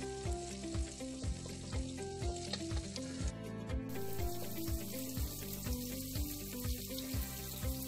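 Background music with a steady beat and a simple melody over the sizzle of shallots, garlic, peppers, chillies and herbs stir-frying in hot oil in a wok as they are stirred.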